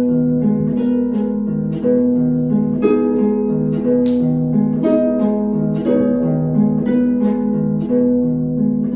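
Harp playing alone: a run of plucked notes and chords over a repeating low figure.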